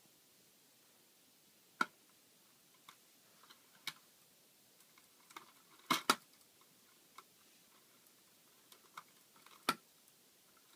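Irregular light clicks and knocks, with a close pair of louder knocks about six seconds in: the bolted perforated metal strips and joints of a homemade Nitinol heat engine's linkage being moved by hand.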